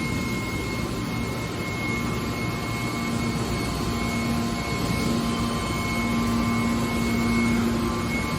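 Industrial machinery running with a steady mechanical roar, likely a hydraulic scrap-metal baler at work; a low, steady hum comes in about three seconds in and holds.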